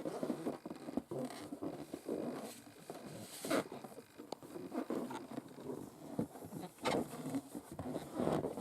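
Long acrylic nails scratching and tapping on an inflated balloon: an irregular run of scrabbling strokes, with a few sharper taps.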